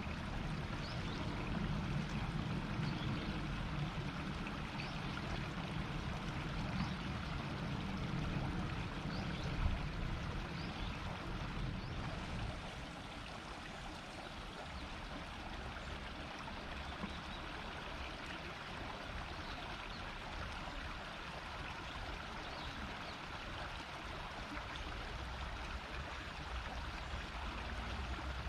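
Shallow river murmuring and rippling steadily, with a heavier low rumble that eases about halfway through.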